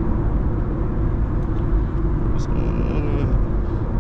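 Steady road and engine rumble inside the cabin of an Infiniti Q50 cruising on the highway, mostly tyre noise and a low drone.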